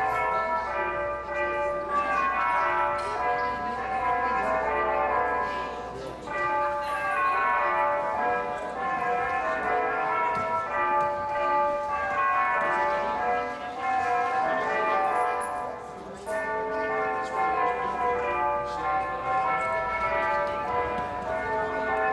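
A carillon clock's bells playing a tune, note after note, in phrases with a couple of brief pauses.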